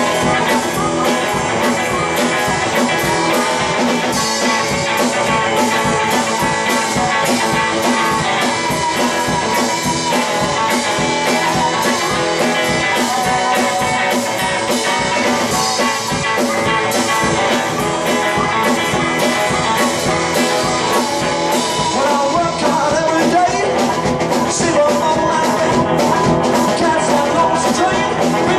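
Live blues band: amplified harmonica wailing over a hollow-body electric guitar and a drum kit keeping a steady beat.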